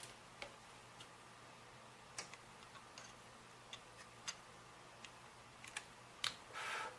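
Faint, scattered light clicks and taps of a soldering iron tip and solder wire working on the solder pads of a circuit board, with a short hiss near the end.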